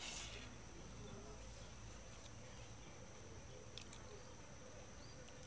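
Quiet rural outdoor ambience: a faint, steady high-pitched insect drone, with a brief soft rustle at the start and a few faint clicks later on.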